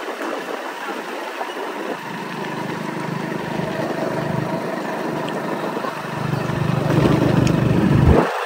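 Motorcycle engine running while riding along a road, with a steady rushing noise of wind and road. The rush and rumble grow louder about six seconds in, then the low rumble drops away sharply at the very end.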